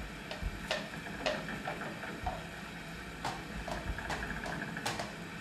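Sound-effect hoofbeats of a horse walking: a slow, uneven clip-clop of sharp hollow clicks, about two to three a second.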